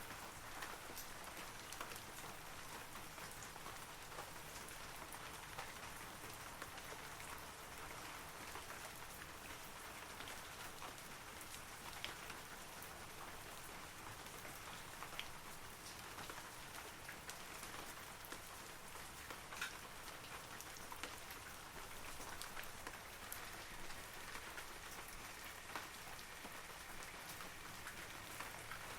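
Steady rain falling through forest trees: an even hiss of many drops, with scattered louder single drops ticking throughout.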